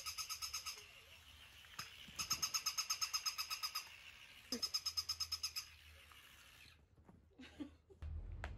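Battery-operated walking plush dog toy making its electronic yapping sound: three bursts of rapid, high-pitched pulsing beeps, about nine a second, each lasting a second or so. A low hum comes in near the end.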